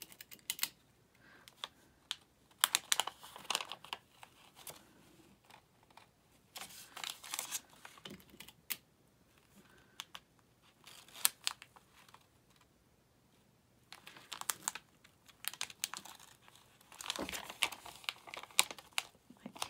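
Paper foundation and quilting fabric handled by hand: on and off, paper rustles and crinkles with small sharp clicks, as pins are pulled and the block is shifted.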